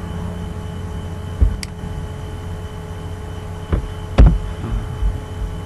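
Computer mouse and keyboard clicks picked up by the recording microphone over a steady electrical hum with a faint high tone: a few separate thumps and clicks, the loudest a little past four seconds in.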